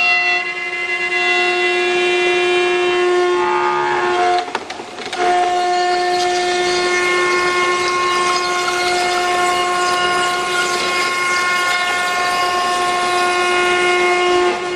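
5-axis CNC router spindle running at high speed as it mills a curved wooden workpiece: a steady high-pitched whine that drops out briefly a little past four seconds in and then comes back.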